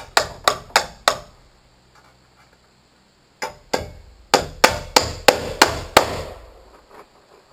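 Hammer driving nails through a steel joist hanger into a wooden joist: about four sharp blows, a pause of about two seconds, then a run of about eight more blows at roughly three a second.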